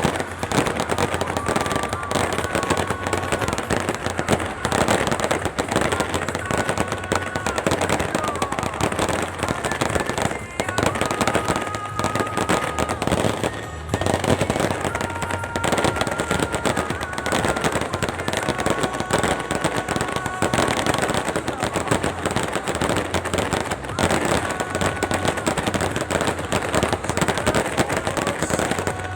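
A fireworks display going off in a dense, continuous barrage of bangs and crackling. A few short steady whistling tones sound over it now and then.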